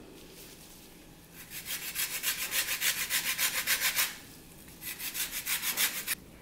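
Lemon rind rasped across a fine stainless-steel grater while zesting a lemon: quick, even scraping strokes, several a second. It comes in two runs with a short pause between them.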